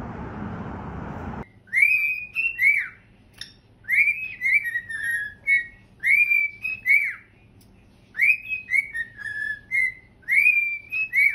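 Cockatiel whistling a short tune of clear rising and falling notes, repeated about five times, each phrase about a second long with short pauses between.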